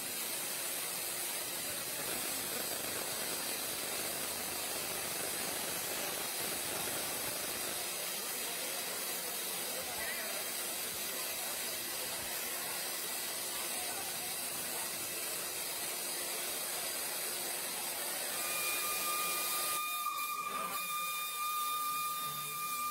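Vintage steam locomotive venting steam: a steady hiss with crowd voices under it. Near the end a steady high-pitched whistle tone starts and holds.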